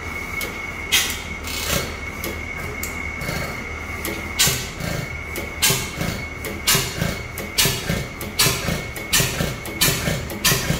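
Fairbanks-Morse Model T 4 hp hit-and-miss engine running: sharp firing bangs at uneven spacing, with a gap of over two seconds early on and then about one a second, and softer mechanical clatter as it coasts between them. The uneven firing is the governor skipping fires on the miss strokes while the flywheels carry it.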